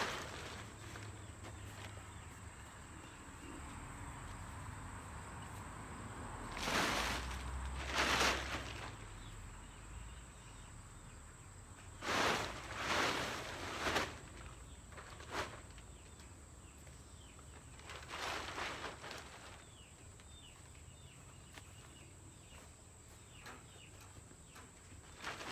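Separate rustling swishes, each a second or two long, a few seconds apart with quieter stretches between: movement and handling during outdoor work, with footsteps in grass.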